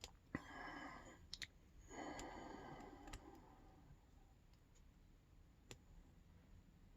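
Lock pick working inside an all-brass Yale pin-tumbler padlock: faint scraping of the pick against the pins, with a few sharp metallic clicks spread out, the loudest near the start and about a second and a half in.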